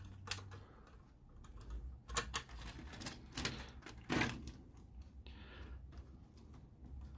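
Light, irregular clicks and knocks of plastic LEGO pieces as a small LEGO forklift is handled on the baseplates and its forks bump the pallet, about a dozen clicks with one of the louder knocks about four seconds in.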